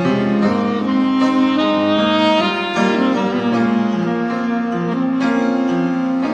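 Saxophone playing a slow melody of long held notes over keyboard accompaniment: the instrumental intro of a blues ballad.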